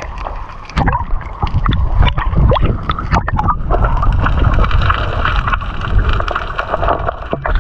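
Water sloshing and gurgling close around the camera at the surface, with irregular splashes and knocks.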